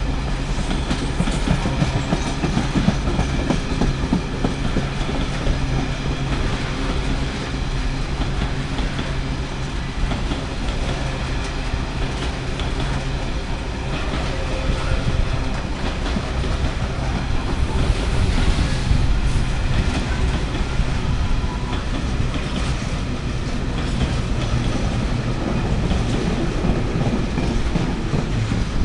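Freight train of open box wagons rolling past, wheels clattering over the track in a continuous rumble with rapid clickety-clack. The sound holds steady as the wagons go by.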